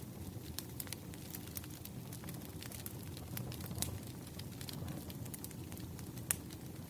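Campfire burning: a steady low rumble of flames with irregular crackles and pops of burning wood, one sharper pop near the end.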